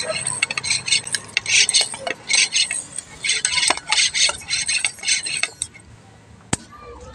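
Repeated short scraping and rubbing strokes with light clicks as hands work a bicycle tyre around its rim. It turns quieter after about five and a half seconds, with one sharp click near the end.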